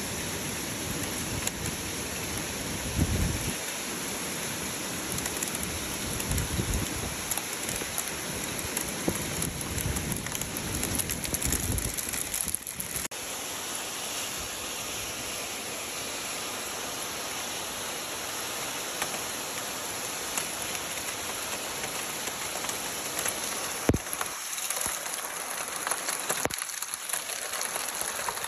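Hail and rain falling hard: a dense, steady hiss and patter of hailstones striking roofs, a plastic canopy and pavement, with a few brief low bumps.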